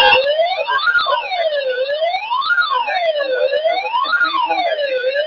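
Siren wailing, its pitch sweeping up and down in a smooth repeating cycle about every second and a half.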